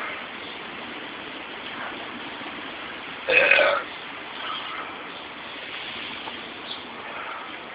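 A man burps once, a short belch about three seconds in, over a steady hiss of falling rain.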